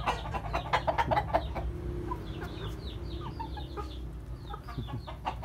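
A flock of chickens clucking, many short calls overlapping.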